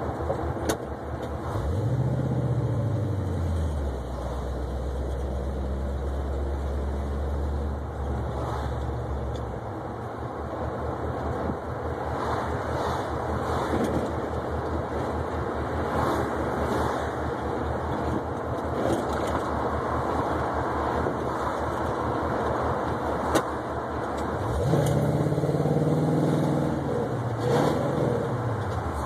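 1972 Oldsmobile 442's V8 engine and road noise heard from inside the moving car. The engine pitch drops away about two seconds in, holds steady for several seconds, and rises louder as the car accelerates near the end.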